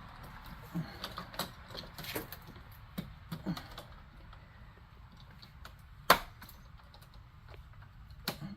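Scattered light clicks and taps of hand tools and small electrical parts being handled, with one sharper click about six seconds in.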